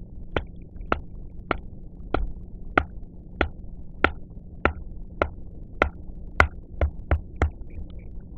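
Batoning: a wooden baton knocking repeatedly on the spine of a RUI Taniwha fixed-blade knife, driving it down through a hard holm oak branch to split it. About fourteen sharp knocks, roughly one every half second or so, coming quicker near the end.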